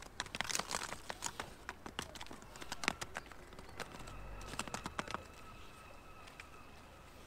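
Rope clicking and rustling in gloved hands as a magnet-fishing line is hauled up hand over hand. A faint steady high tone holds from about three seconds in.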